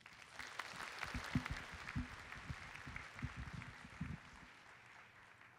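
Audience applauding: many people clapping together, fading out over the last second or so.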